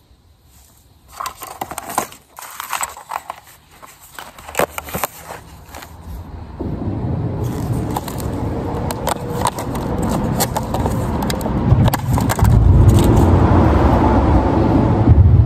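Small clicks and scrapes of fishing line and a hook being handled close to the microphone. After a few seconds a low rumble builds up steadily and is loudest near the end.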